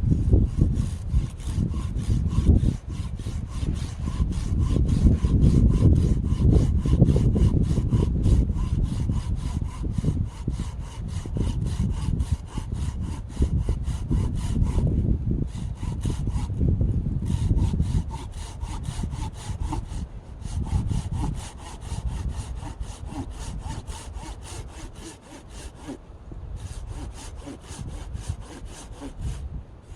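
Hand saw cutting firewood in steady, evenly paced back-and-forth strokes, with a few short pauses.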